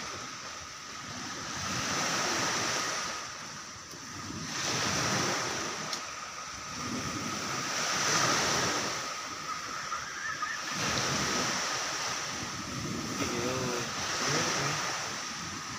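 Sea waves washing in on the shore, swelling and falling away about every three seconds, with a thin steady high tone running underneath.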